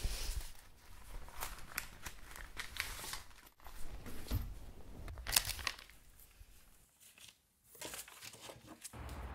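Quiet, irregular rustling and crinkling, like cloth and paper being handled, with scattered light clicks and a near-silent gap about seven seconds in.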